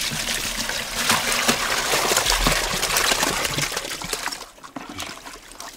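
Water gushing from a plastic jerrycan into a plastic bucket, pouring for about four seconds and then stopping. Small splashes and knocks follow as a wire dip net works in the bucket.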